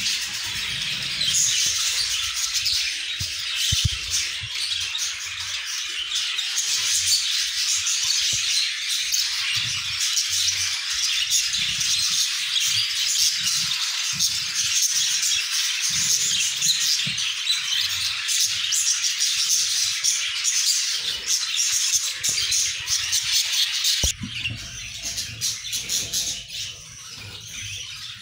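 Budgerigars chirping and chattering in a dense, busy chorus, dropping suddenly to quieter chirping near the end.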